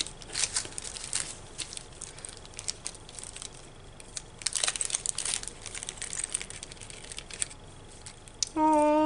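Clear plastic cellophane packets crinkling and rustling as they are handled, with light clicks of small wooden veneer embellishments being tipped out and sorted. Near the end comes a short, steady hummed 'mm' from a voice, the loudest sound.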